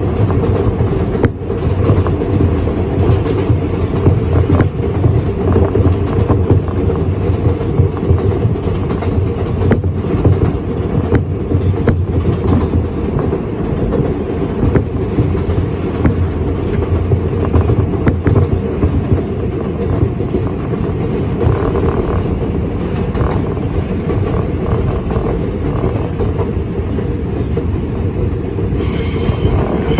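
R142 subway car running at speed, heard from inside the car: a steady heavy rumble with the clickety-clack of wheels over rail joints. A high wheel squeal joins in near the end.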